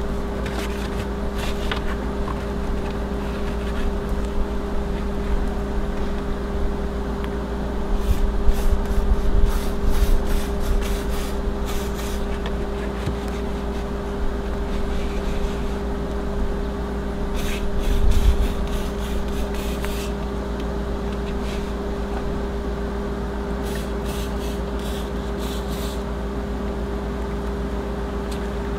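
Aerosol can of silicone slide-out lube sprayed in several spells of short hissing bursts onto an RV slide-out's gear mechanism. A steady hum runs underneath throughout.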